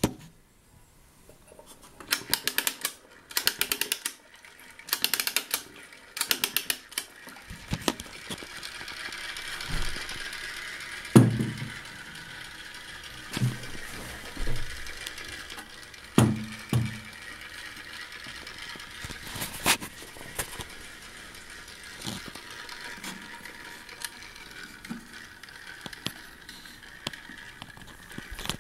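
Clockwork spring of a 1919 Costanzo tin toy boat being wound with its key in about four quick ratcheting bursts. Then the clockwork motor runs with a steady whirr as the boat moves through the water, with a few low knocks.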